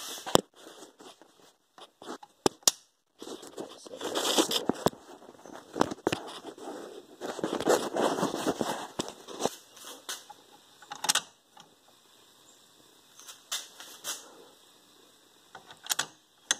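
Metal clicks and clunks from an Atwood hydraulic trailer coupler's latch and lever being worked by hand, a few sharp ones scattered through and the loudest near the start, with stretches of rustling handling noise in the middle.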